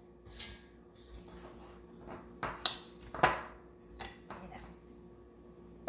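Utensils clinking and knocking against a plate a few times, irregularly spaced, as food is served onto it.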